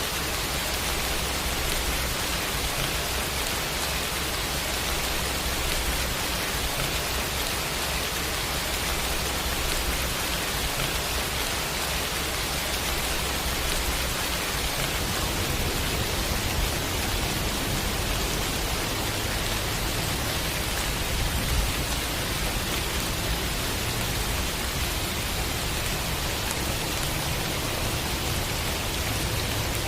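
Steady, even rain hiss, mixed with a low steady drone underneath that changes pitch about halfway through.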